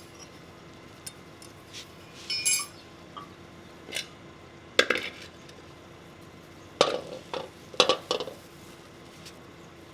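Scattered clinks and knocks of metal tools, containers and fork parts being handled. A ringing clink comes about two and a half seconds in, and louder knocks follow near the middle and twice toward the end.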